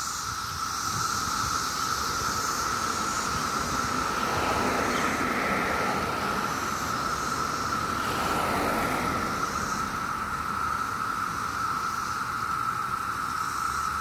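Dense chorus of Brood X 17-year periodical cicadas, a steady, unbroken high drone. Passing cars swell up under it twice, about four and eight seconds in.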